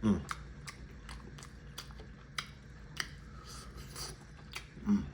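A person chewing a mouthful of tender oxtail close to the microphone, with many wet mouth clicks and smacks at an uneven pace. A brief low voice sound comes right at the start and again near the end.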